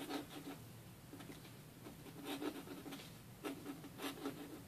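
Steel dip pen nib scratching faintly across paper in a run of short strokes as a word is written in script.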